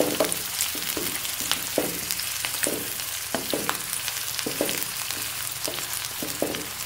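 Chopped cabbage, capsicum and onion sizzling in oil in a wok on a low flame, stirred with a slotted spatula that scrapes across the pan about twice a second.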